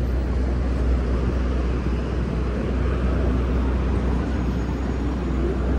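Steady city street traffic noise: a continuous low rumble of cars and taxis moving along the avenue, mixed with general street hubbub.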